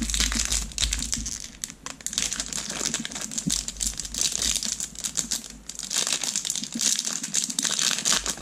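Foil wrapper of a baseball card pack crinkling and crackling as it is handled and pulled open, with brief pauses about two seconds and five and a half seconds in.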